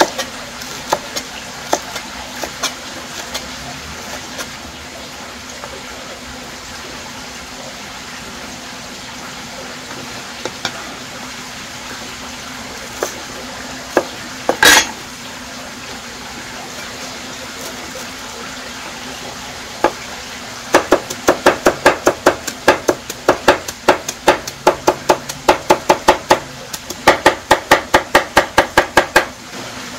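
Kitchen utensils tapping and clinking, with one louder clatter about halfway through, then a quick run of regular sharp taps, about four a second, over the last third. A steady low hum runs underneath.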